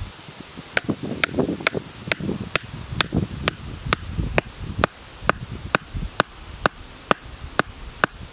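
A green bamboo stake being driven into the ground with a length of dry bamboo used as a mallet: a steady run of sharp knocks, a little over two a second, starting about a second in.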